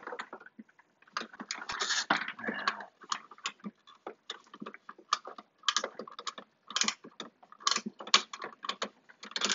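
Hard plastic parts of a vintage toy robot's arm and gripper clicking and rattling as they are handled and fitted back together, a dense run of clatter between about one and three seconds in, then scattered irregular clicks.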